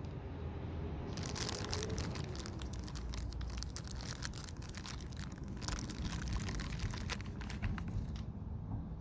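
Dense plastic crinkling and clicking as the parts of a windshield resin repair kit are handled. It starts about a second in and stops shortly before the end.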